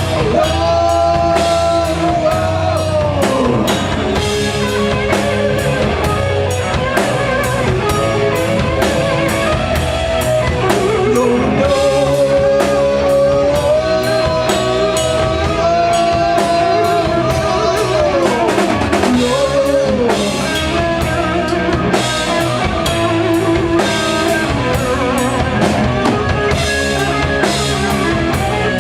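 Live rock band playing a loud instrumental passage on drum kit and guitars, with a held lead line that slides down in pitch a few times.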